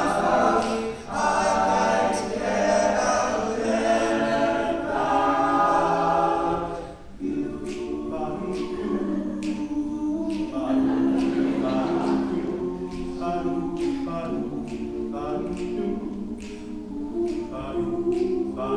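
All-male a cappella group singing held, wordless backing chords in close harmony, dropping to a lower register about seven seconds in, over a steady vocal-percussion beat of about two hits a second.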